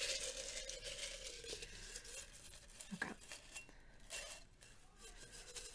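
Folded paper slips rustling as a hand stirs them around inside a jar, with many small clicks.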